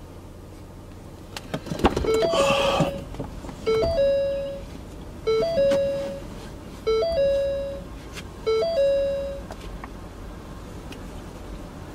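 Ford Taurus SHO's door-open warning chime sounding five times, about every one and a half seconds, each a quick little run of notes ending in a held, fading tone. Just before the first chime, about two seconds in, comes a brief rustle and clunk as the driver's door is opened.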